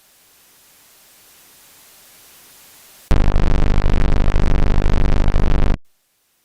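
Faint hiss, then about three seconds in a very loud, distorted bass sound effect: a low buzzing tone pulsing about eight times a second for nearly three seconds, cutting off abruptly.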